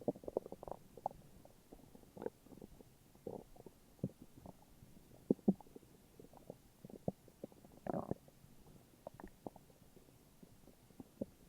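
Human stomach growling: irregular short gurgles and pops, with a longer gurgle about eight seconds in.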